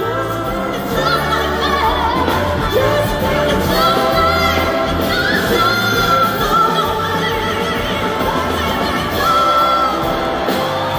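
A woman belting lead vocals with a live band, with long, bending held notes over a steady bass and drum groove. Recorded from the audience at a loud concert.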